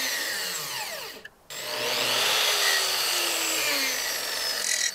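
Circular saw running and cutting through a plywood deck sheet. It breaks off sharply for a moment a little over a second in, then cuts on and stops near the end.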